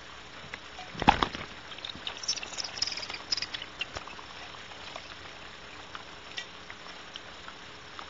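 Barn owls moving about in a tree-cavity nest: a single knock about a second in, then a flurry of small high-pitched scratches and clicks, with scattered ticks over a steady faint hiss.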